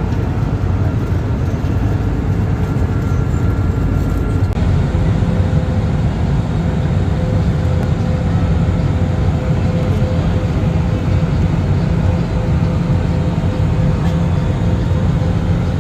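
Steady low rumble of jet engines and air noise heard inside the cabin of an Airbus A320.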